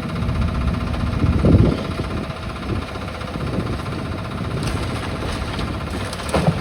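A demolition excavator's diesel engine running steadily, with a heavy thud about a second and a half in as the machine strikes the building.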